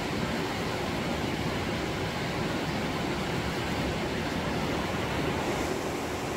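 River water rushing steadily over rocks and small rapids.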